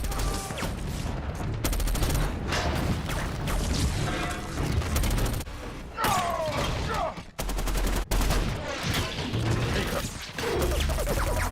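Movie battle sound effects: rapid gunfire volleys from a cover-fire exchange, with crashes and impacts. There are two runs of fast, evenly spaced shots, about two seconds in and again past seven seconds, and a sliding whine around six seconds in.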